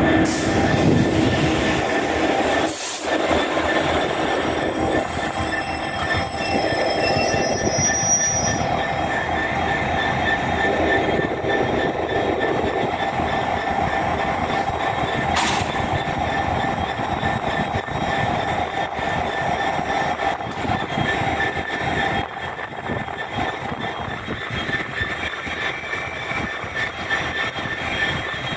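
GBRf Class 66 diesel locomotive 66764 idling, its EMD two-stroke V12 diesel running steadily with a steady high whine over the rumble.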